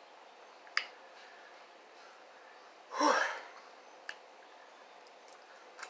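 A person eating, mostly quiet: a sharp mouth or eating click about a second in, then a short audible breath about three seconds in.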